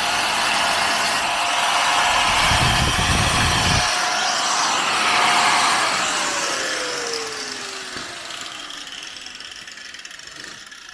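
Power tool, most likely an angle grinder, cutting and grinding the rusty steel floor pan with a steady whine, with a heavier low rumble a couple of seconds in. About halfway through it is switched off and spins down, its whine falling in pitch as it fades.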